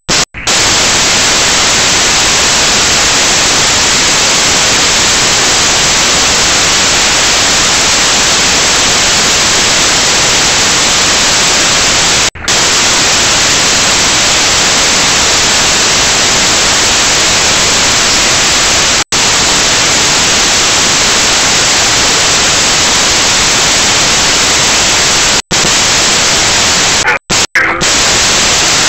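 Loud, steady static hiss from a mini camera's audio track, cut by a few brief dropouts to silence about 12, 19 and 25 seconds in and twice near the end.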